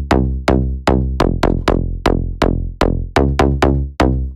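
Serum synth bass preset 'Bass Brutal' playing a slap house bass riff. It is short, punchy notes about three to four a second, each with a bright attack that quickly dulls, and the pitch steps between notes.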